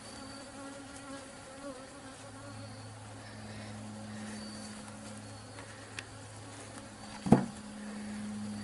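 Honeybees buzzing around an opened hive, a steady low hum that swells and fades as bees fly close by. A small click about six seconds in and a sharp knock a second later, the loudest sound.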